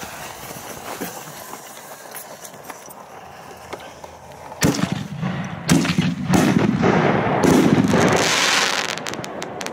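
A fireworks shell going off from its mortar: a sharp bang about four and a half seconds in, two more bangs, then several seconds of loud rushing and crackling burn that ends in a quick string of crackles.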